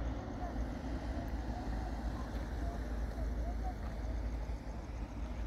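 Rolls-Royce Trent XWB turbofans of an Airbus A350-900 climbing out after takeoff, heard from the ground as a steady low rumble. Faint short chirps come and go above it.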